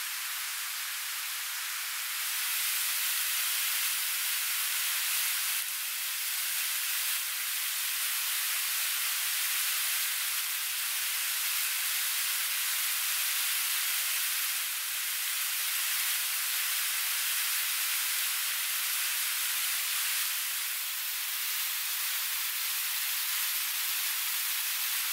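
Steady rushing hiss of a river and waterfall, a little louder about two seconds in.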